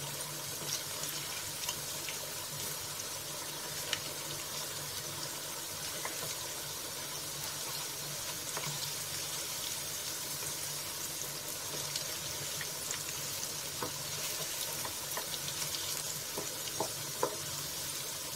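Besan-battered brinjal slices shallow-frying in a frying pan: a steady sizzle with scattered small crackles, and a wooden spatula moving and turning the pieces in the pan.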